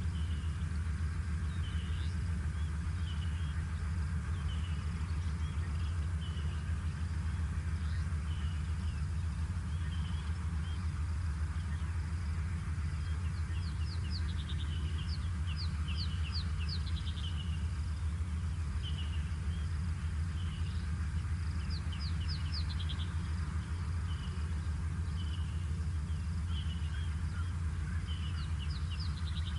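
Wild birds calling over a steady low rumble. Short high chirps repeat about once a second, and quick runs of rapid, falling high notes come about a third of the way in, again past the middle, and near the end.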